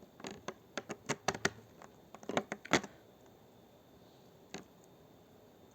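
Quick run of small sharp clicks and snaps from a wire cutter and the wire it works on, bunched in the first three seconds, then a single click about a second before the end.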